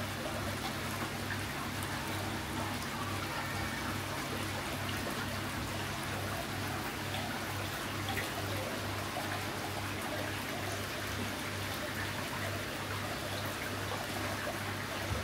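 Water trickling and running steadily in a koi pond or tank, over a low hum that pulses evenly, about three times a second.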